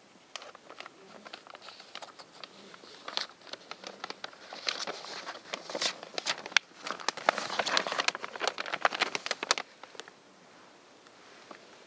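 Close crinkling and crackling: a dense run of quick clicks and rustles that starts about half a second in, grows busier in the second half and stops abruptly near the end.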